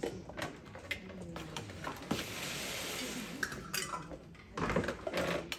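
Dishes being handled and set down on a table: glass bowls and metal baking pans clinking and knocking several times. There is about a second of steady hissing in the middle and a heavier knock near the end.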